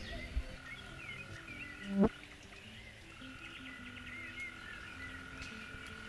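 A chorus of frogs calling in short, repeated low notes, with a steady high tone and scattered bird chirps above it. About two seconds in there is one loud, short sound.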